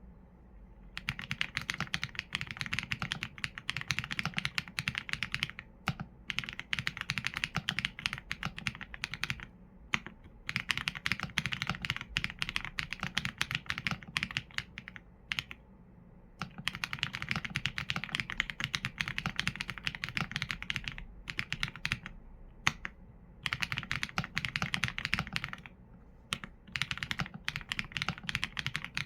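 Typing on a Qsenn A75 mechanical keyboard with Leobog Graywood V4 linear switches and PBT keycaps: fast runs of keystrokes broken by short pauses every few seconds.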